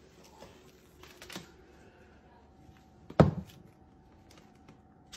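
A single sharp thump about three seconds in, against a quiet room with a few faint clicks and a faint steady hum.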